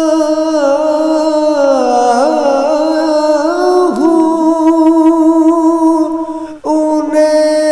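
Naat singing: a voice holds long, gliding melismatic notes with humming and no words. There is a short break about six and a half seconds in, before a new held phrase starts.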